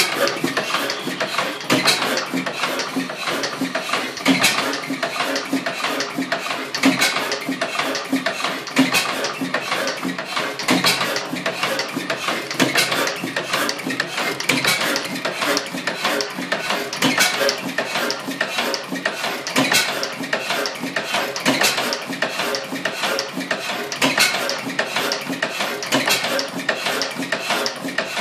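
1907 Blackstone 3 hp hot bulb oil engine running: a steady, fast metallic clatter of its valve gear and moving parts, with a louder beat about every two seconds. Its owner says it still needs a little work to smooth it out.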